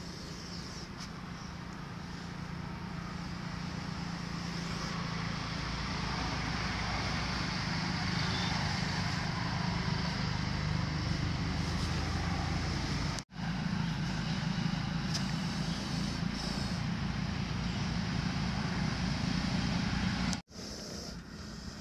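Steady rumble with a low engine-like hum, like nearby motor traffic, building over the first several seconds and then holding, dropping out abruptly twice for a moment.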